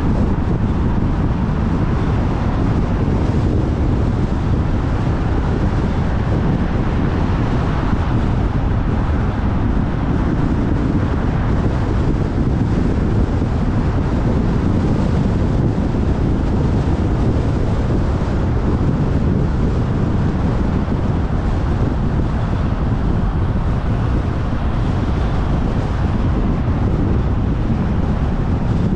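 Kia Cerato driving at a steady speed: a continuous low rumble of road and tyre noise, with wind buffeting the GoPro's microphone.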